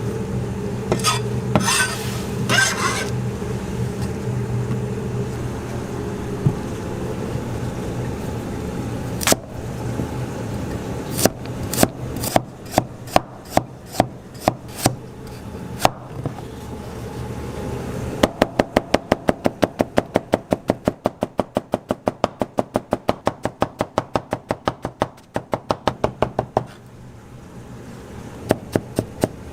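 A knife chopping on a cutting board: at first scattered single chops, then a fast even run of about four strokes a second that pauses briefly near the end and starts again. A steady low hum runs under the first third.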